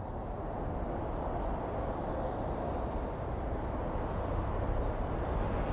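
A steady rushing noise that slowly swells, with two brief high bird chirps about two seconds apart.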